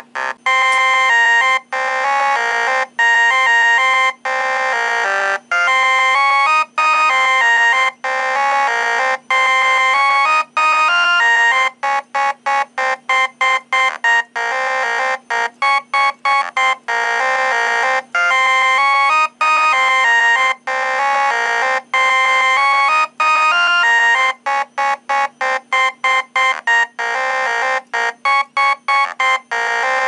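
A tune played through a pair of Wheelock ET-1010 fire-alarm speaker/strobes, heard as a melody of notes that start and stop abruptly with short gaps between them. The notes come in quicker runs at times.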